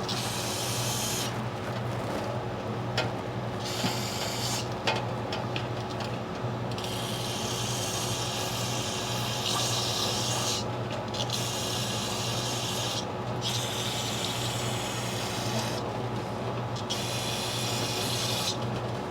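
Aerosol brake cleaner hissing from a spray can into a motorcycle's rear brake caliper, between the rotor and caliper, to flush out brake dust. It comes in about seven bursts of one to four seconds with short pauses between them.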